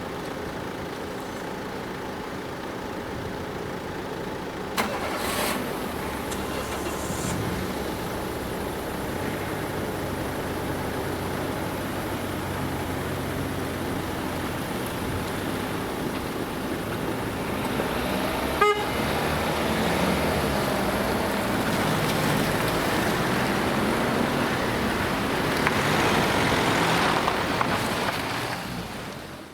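Motor vehicles running and passing, the noise swelling near the end, with a very short horn toot about two-thirds of the way through.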